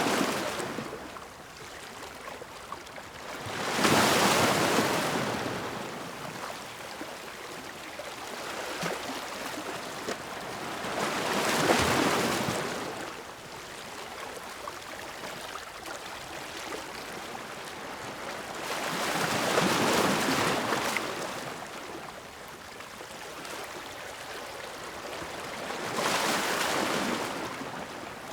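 Ocean waves breaking on a shore, with a steady wash of surf between them. About four big waves crash and rush in, roughly every seven or eight seconds.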